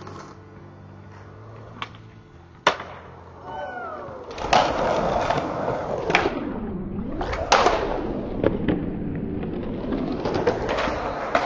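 Skateboard on concrete: a few sharp board pops and slaps, then the wheels rolling steadily and loudly, with more clacks of the board landing about halfway through.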